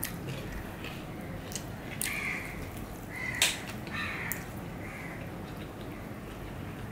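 Close-up eating by hand: fingers working rice and chicken khichuri on a plate, then wet chewing and lip smacks with a few sharp clicks, the loudest about three and a half seconds in.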